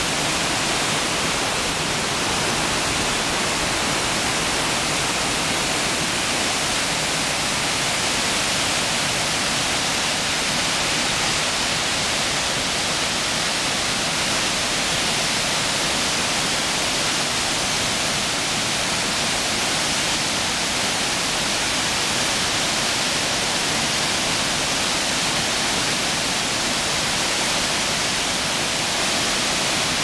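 Shiraito Falls' many curtains of water pouring into the plunge pool: a steady, even rush of falling water.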